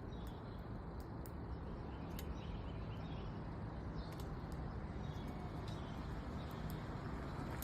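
Small birds giving short, high chirps now and then over a steady low rumble.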